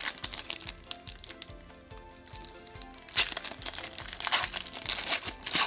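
Crinkling and tearing of a hockey card pack's wrapper being torn open and handled, starting about three seconds in, over quiet background music.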